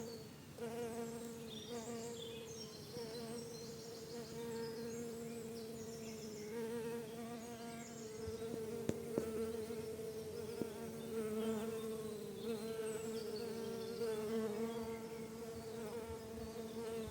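Many bees buzzing at once in a garden, a steady drone that wavers slightly in pitch, with faint high chirps above it.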